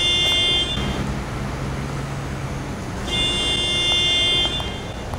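Vehicle horn sounding two long blasts about three seconds apart, over street noise, with a lower steady tone between the blasts.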